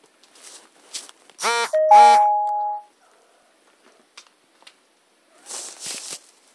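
A two-note electronic chime sounds about a second and a half in, the higher second note ringing on for about a second. Near the end there is a short rustling noise.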